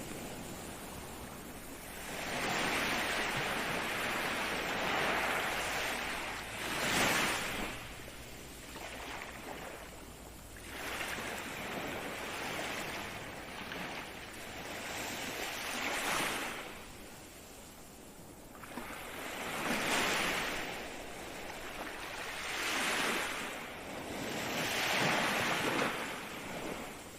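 Ocean surf: waves breaking and washing up the shore in surges every three to four seconds, swelling and then ebbing between them.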